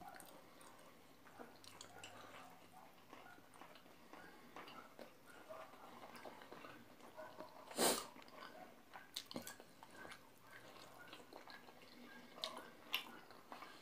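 A person chewing and eating a chicken momo dumpling close to the microphone: faint scattered mouth clicks and smacks, with one louder sharp click about eight seconds in.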